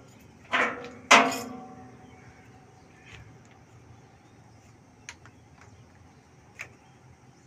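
Two loud metallic clanks about half a second apart, the second louder, each ringing as it dies away, followed by a few faint clicks.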